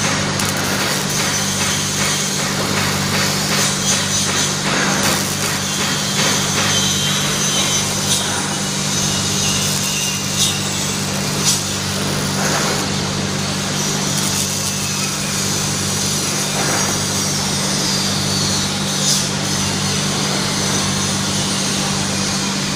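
Robotic MIG welder at work: the arc crackles and hisses over a steady low hum, with a few sharp clicks along the way.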